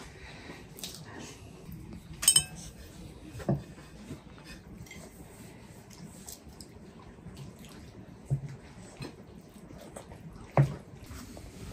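Tableware clinking and knocking during a meal: a sharp ringing clink about two seconds in, then a few duller knocks of a wooden spatula and utensils on clay plates and a wooden serving tray.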